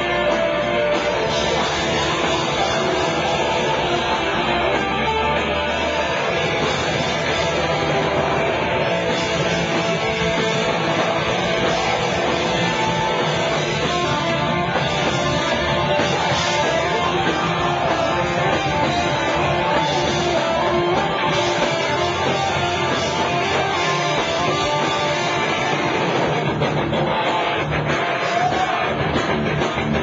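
Rock band playing loud, guitar-heavy music live, keeping a steady level throughout.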